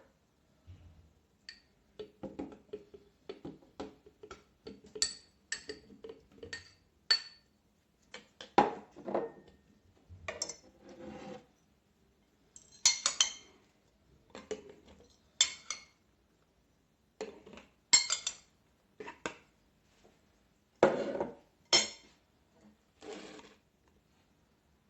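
Irregular clinks and knocks of small hard objects being handled and set down, several a second at times, with a few louder sharp clinks.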